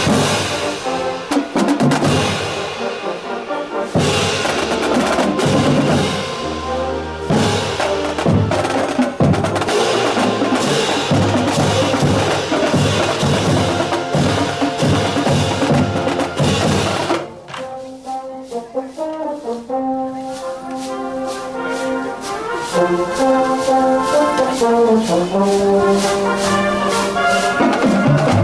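Brass band music with drums and percussion. A little past halfway it drops to a quieter passage of held notes, then builds back up.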